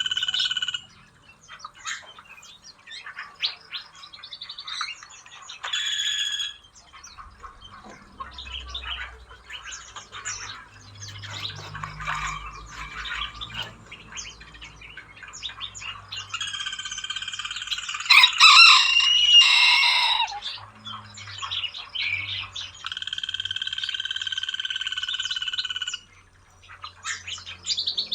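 Many small aviary birds chirping and calling over one another, with three stretches of a loud, steady, high-pitched buzzing call lasting a few seconds each; the loudest comes about two-thirds of the way in.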